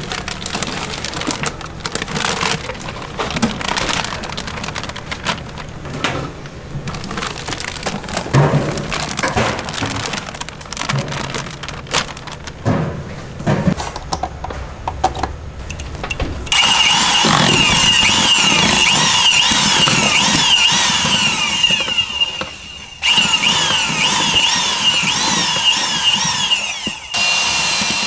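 Kitchen clatter with scattered knocks, then after a sudden change about 16 seconds in, a loud steady sizzling hiss that fits chicken deep-frying in oil for gangjeong. The hiss breaks off briefly twice near the end.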